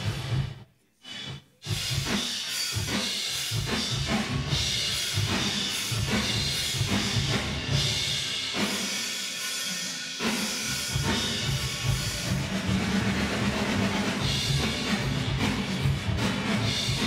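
Multitrack drum kit recording playing back with a digital reverb from a Lexicon PCM 81 effects processor on it, while the reverb time and high cut are being set. The playback cuts out briefly about half a second in and picks up again a second later.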